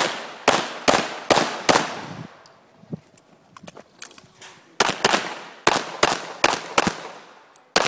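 Semi-automatic pistol fired in quick strings: about five shots in the first two seconds, a pause of about two and a half seconds, then about six more shots and a final one near the end, each shot trailing off in a short echo.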